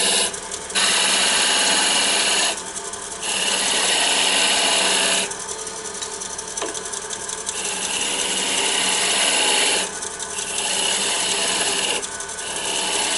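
Wood lathe running while a wide turning tool cuts into the spinning wooden blank, a loud scraping shaving sound in about five passes of one to two seconds each. Between passes the cut drops away, leaving only the steady hum of the lathe.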